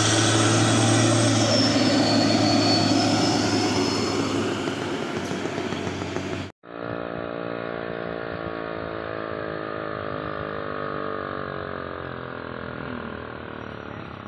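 A Hino tanker truck's diesel engine passes close by, loud and noisy. The sound breaks off for a moment about halfway. After that, a heavy truck's diesel engine labours on the climb, its pitch slowly sinking as the revs drop.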